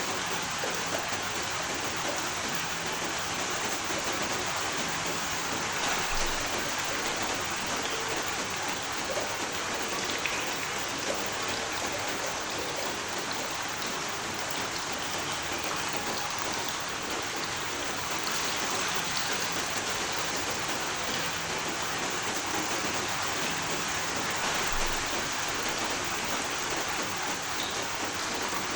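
Steady rain falling, with a dense even hiss and scattered drop ticks.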